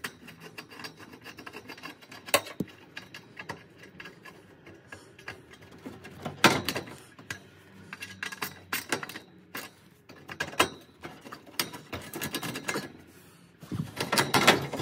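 Screwdriver turning the screw of a metal hose clamp on a caravan heater's flexible aluminium exhaust duct: scattered small metal clicks and scrapes with a few louder knocks. Near the end, a longer spell of scraping and rattling as the clamp and duct are worked loose by hand.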